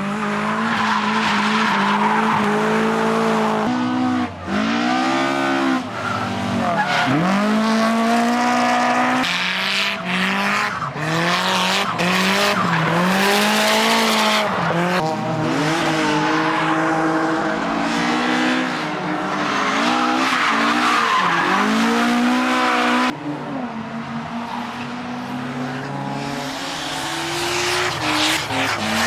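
Drift car engines revving hard and dropping again and again as the cars slide sideways, with the tyres squealing and skidding over it. The sound changes suddenly about two-thirds of the way through.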